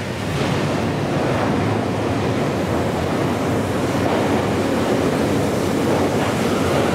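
Commuter train pulling into a station platform: a steady rush of wheel and air noise that grows a little louder as the cars come alongside.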